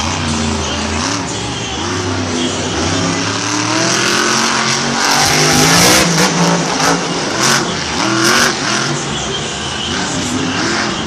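A monster truck's supercharged V8 revving hard, its pitch rising and falling with the throttle as the truck jumps. It is loudest about six seconds in, with a few sharp bangs from then until past eight seconds.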